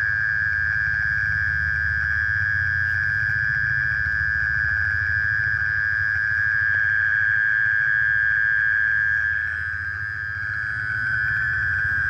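A night-calling insect trilling continuously on one steady high pitch, with a low rumble underneath. The trill dips slightly in loudness near the end.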